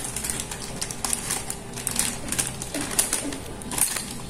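Plastic packets of krupuk crackers crinkling and rustling in a run of irregular crackles as they are handled and laid into bamboo boxes.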